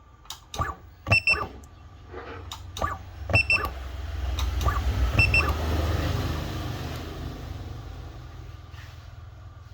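Battery-cell spot welder welding 0.25 mm strip: a series of sharp clicks from the welds, with a short double beep three times. A low hum swells in the middle and slowly fades.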